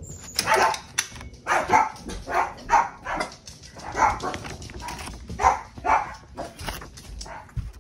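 Small dog barking over and over, about two barks a second.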